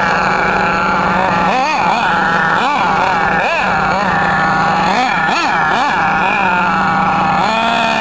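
Losi 8ight 2.0 nitro RC buggy's two-stroke glow-fuel engine revving up and down in quick, repeated throttle bursts as the buggy is driven. Near the end it settles into a steady note.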